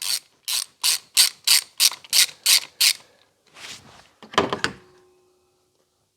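Socket ratchet clicking in short, regular strokes, about three a second, as a 10mm socket undoes a coil pack bolt. A couple of rougher bursts follow before it stops.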